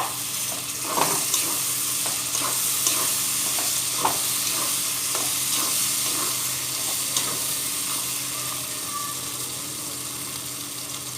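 Curry masala with yogurt sizzling in hot mustard oil in a pan, a spoon stirring and scraping it in short irregular clicks. The sizzle eases off slightly toward the end.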